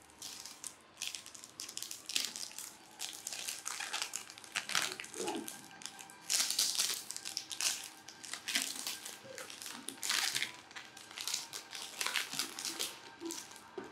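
Clear plastic shrink wrap crinkling as it is peeled off a cardboard box, in irregular bursts of crackles.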